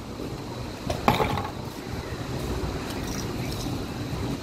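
A single sharp clack with a short ring about a second in, from the metal brake master cylinder being handled, over a steady low rumble.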